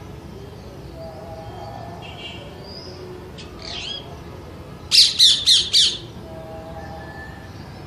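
A parrot squawking: a softer call, then about five seconds in four loud, harsh squawks in quick succession.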